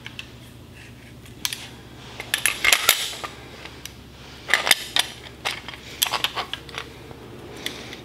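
Light metal clinks and clicks as a steering shaft and aluminium steering-column brackets knock together while being handled and fitted. They come in short clusters, the loudest about two and a half seconds and five seconds in, over a faint steady low hum.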